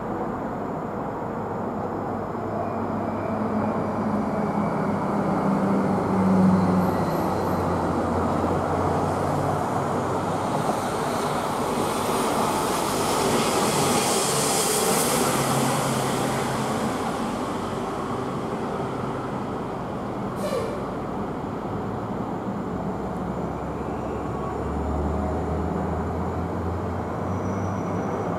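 Airbus A320's twin IAE V2500 turbofan engines at climb power just after takeoff: a steady jet roar that builds to its loudest, with a rushing hiss, about halfway through and then eases off.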